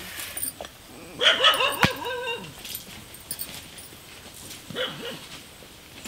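A dog yapping: a quick run of short, high yips about a second in, then two more near the end, with a sharp click among the first run.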